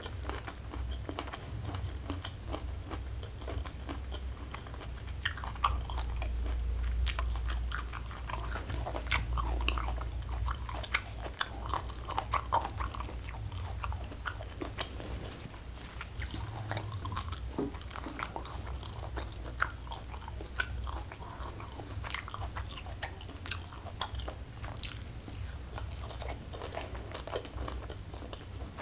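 Close-miked ASMR chewing and biting of raw leafy greens with sambal, many short sharp mouth clicks and crunches, over a steady low hum.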